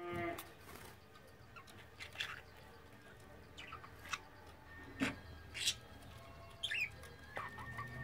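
Budgerigars chirping: about eight short, sharp chirps scattered a second or so apart, the loudest two a little past halfway, over a faint steady hum. A brief tone sounds at the very start.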